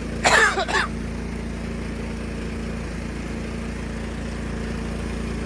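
Small engine idling steadily, with a short cough or throat-clear from a person about half a second in.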